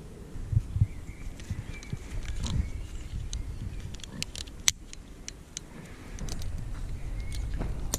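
Metal climbing hardware (carabiners and rope devices) clicking and clinking as gloved hands handle the climbing system, with a run of sharp clicks in the middle. A low steady rumble sits underneath.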